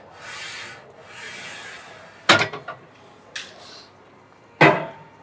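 A man breathing hard in long, hissing breaths, then two loud clanks of gym machine parts about two and a half seconds apart, with a few lighter knocks between them.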